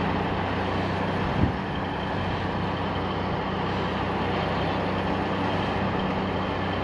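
Heavy truck's diesel engine idling steadily, a low even hum, with one brief blip about a second and a half in.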